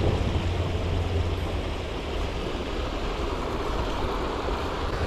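Strong wind buffeting the microphone: a steady rushing noise with a heavy low rumble that eases about two seconds in.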